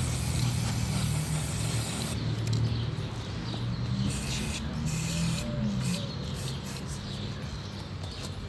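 Spray paint hissing onto a PC case, the hiss coming and going in bursts over a low steady hum.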